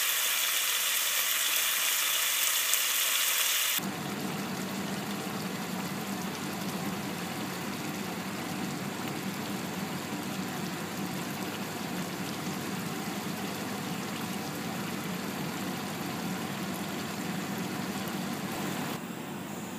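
Spiced tomato masala gravy sizzling in a pan, a loud hiss. About four seconds in it cuts to a quieter, lower, steady simmering as half-boiled baby potatoes cook in the gravy over a medium flame.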